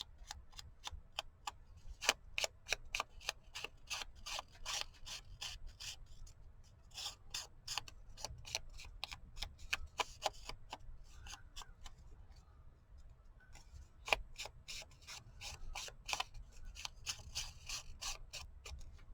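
Quick, repeated rubbing strokes of ink being worked onto paper by hand. The strokes come several a second in three runs, with short pauses between them.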